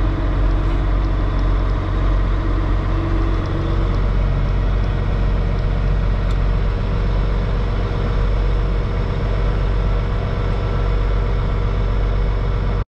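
Heavy diesel tractor engine running steadily, a constant low drone heard from inside the closed cab. It cuts off abruptly at the very end.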